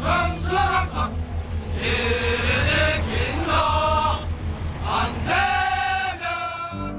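A group of men singing a military song together in unison, with held notes.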